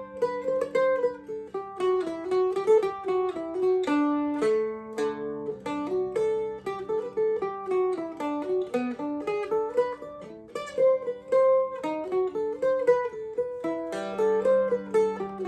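Cas Davey fan-fret ten-string mandolin-family instrument tuned CGDAE, played solo with a pick: a quick single-note melody over lower notes left ringing for several seconds at a time.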